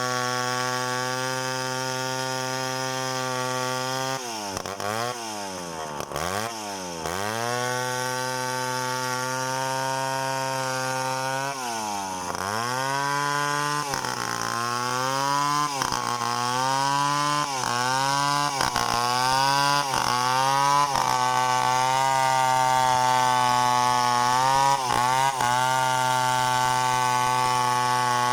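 Two-stroke chainsaw running at high speed through a coconut palm trunk, its engine note dropping and recovering several times in the middle as it bogs in the cut or the throttle is eased.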